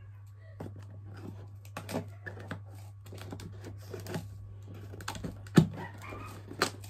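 Hands picking and scratching at the tape and flaps of a cardboard laptop box: a run of irregular clicks and scrapes, with two sharper knocks near the end, over a steady low hum.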